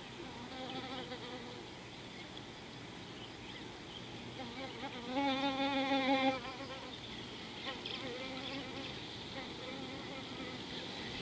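A flying insect buzzing close to the microphone, passing in and out. Its wingbeat hum is loudest for about a second midway, with fainter passes before and after.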